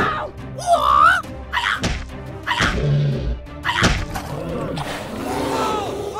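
Background music from a children's cartoon, with sound effects: a warbling, gliding squeal about a second in, then a few short thuds.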